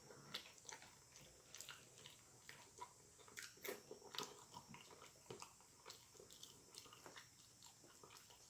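A person chewing and biting food close to the microphone: faint, irregular clicks and crunches, a few a second.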